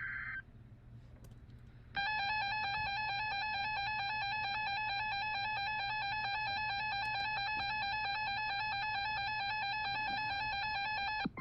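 Emergency Alert System broadcast tones. The tail of a SAME digital header burst ends just after the start. After a short pause, the EAS attention signal, two steady tones sounded together just below 1 kHz, holds for about nine seconds and cuts off abruptly, announcing a new warning message.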